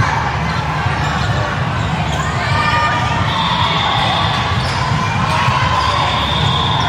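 Indoor gym during a youth volleyball game: players and spectators calling out over a steady hall rumble, with the ball being struck now and then.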